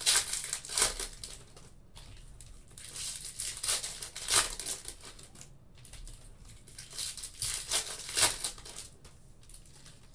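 Foil trading-card pack wrappers crinkling and tearing open in the hands, in several short spells, loudest about a second in and about four seconds in.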